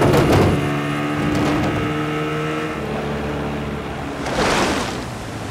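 Storm sound mix of heavy rain and wind under sustained low droning tones, with a louder rushing surge about four and a half seconds in.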